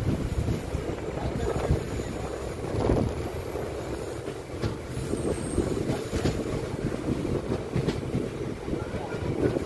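Indian Railways passenger train running along the track: a steady low rumble of the coaches with irregular knocks from the wheels passing over the rails.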